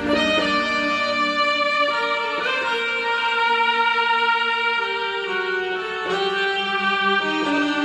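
Roland XPS-10 synthesizer playing a slow melody of long held notes, one voice gliding from note to note about every one to three seconds.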